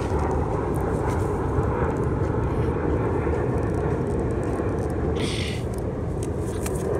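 Steady low background rumble at an even level, with a brief hissing rustle about five seconds in.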